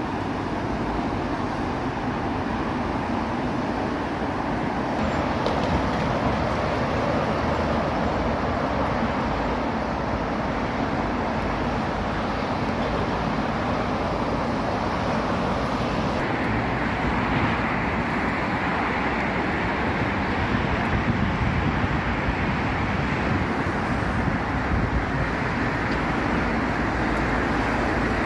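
Steady noise of dense motorway traffic, the tyres and engines of cars and lorries passing below on the M4. It turns somewhat brighter about halfway through.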